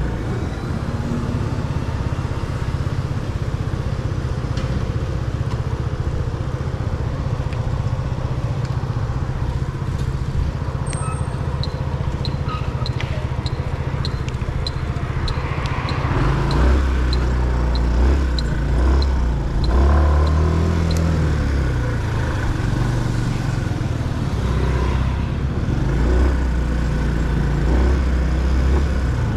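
A motorcycle being ridden: the engine runs steadily with road noise, and the low sound grows heavier about halfway through. For several seconds midway a run of short high beeps sounds about twice a second.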